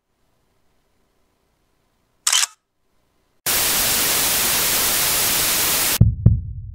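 Edited-in intro sound effects: a short sharp click about two seconds in, then loud steady white-noise static for about two and a half seconds that cuts off abruptly. Two deep thumps follow close together, like a heartbeat.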